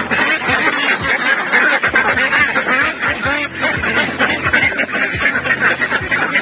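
A flock of domestic ducks quacking loudly and continuously, with many calls overlapping.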